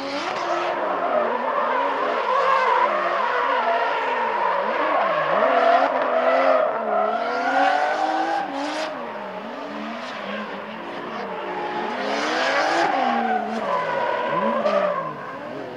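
Nissan 350Z's 3.5-litre V6 engine revving up and down hard through a drift run, its pitch swinging again and again, with tyres squealing in several bursts.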